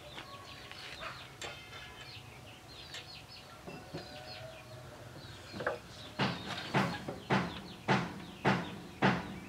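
A chicken clucking: a run of short, evenly spaced clucks, about two a second, starting a little past the middle, with fainter chirps before it.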